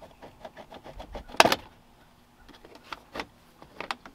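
Plastic A-pillar trim panel of a 4th-gen Ram 1500 being pulled off the windshield pillar: a run of small clicks and creaks, one loud snap about a second and a half in, then a few more clicks near the end.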